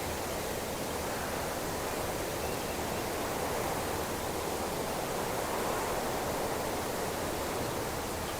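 Wind blowing steadily through a cypress bush, a continuous even rush of moving branches and foliage.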